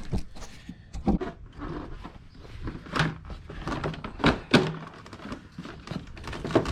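Plastic body panel of a scooter being pulled up and worked off its tabs: handling noise with several irregular plastic knocks and thunks, the sharpest about three and four and a half seconds in.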